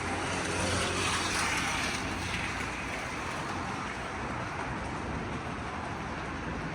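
Street traffic: a vehicle passing, its tyre noise swelling over the first two seconds or so and fading, above a steady low engine hum.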